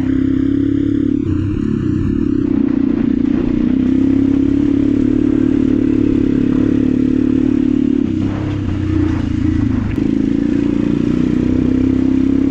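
Go-kart's Honda GX270 single-cylinder four-stroke engine running at steady high revs under way, with rattling from the kart. The revs drop briefly about eight seconds in, then pick up again.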